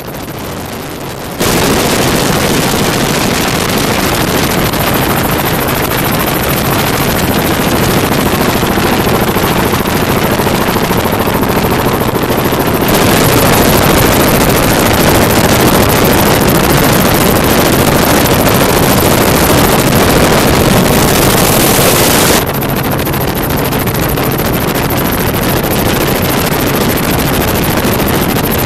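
Helicopter noise with heavy wind buffeting on the microphone from aerial filming: a loud, dense rush with a fast rattle. It jumps up abruptly about a second in and shifts in level near the middle and again about three quarters through.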